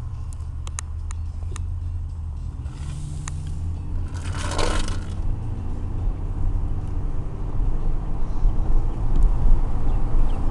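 Steady low road and engine rumble heard inside a moving car's cabin, growing louder near the end. A few faint clicks in the first couple of seconds and a brief rushing noise about four and a half seconds in.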